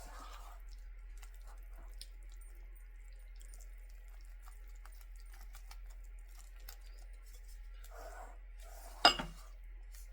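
Spatula stirring thick cake batter in a mixing bowl: faint soft scrapes and small ticks, with one sharp knock about nine seconds in.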